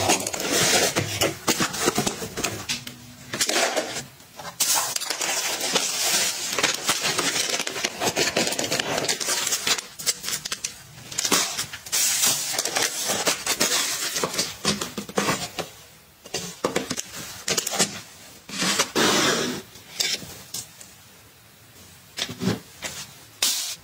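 Close-up handling sounds from several short household tasks in turn: a blade slitting packing tape on a cardboard box, a plastic bag rustling as it is fitted onto a bag holder, and pens being handled in a plastic cup. Many sharp crackles, scrapes and clicks, with a quieter stretch near the end.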